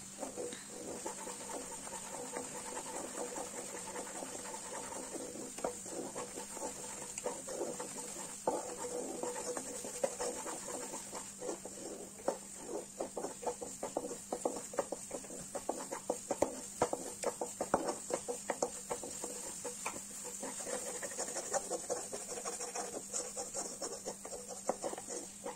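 Wooden spatula scraping and tapping against a nonstick pan while khoya, milk cooked down to soft solids, is stirred and pushed together on a low flame. It makes many short scrapes, busier from about eight seconds in, over a steady low hum.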